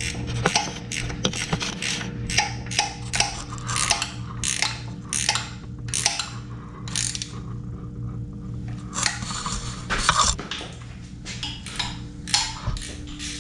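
Hand socket ratchet clicking in quick repeated strokes, about two a second, as the bolts holding the engine to the engine stand are loosened, with a pause a little past halfway. A steady low hum runs underneath.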